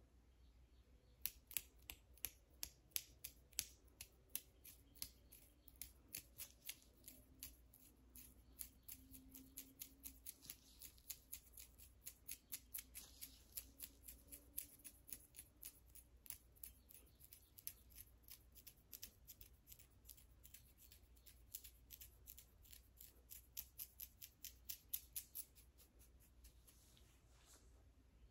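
Fingernails scratching a dry, flaky scalp crusted with dandruff and scabs, close to the microphone. The scratches are rapid and crisp, three or four a second, starting about a second in and stopping just before the end.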